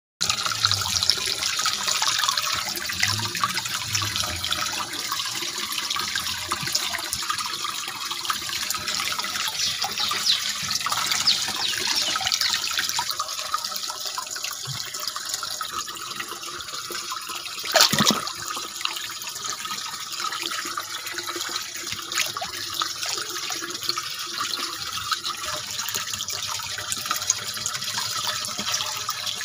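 Water steadily bubbling and trickling in a black tank pond, where an air line feeds bubbles into the water. One sharp, louder sound about 18 seconds in.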